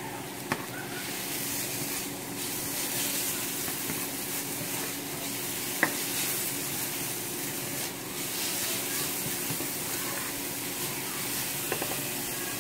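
Diced onion and garlic sizzling in oil in a frying pan, stirred with a spatula, with a steady frying hiss. The spatula clicks sharply against the pan twice, once about half a second in and again near the middle.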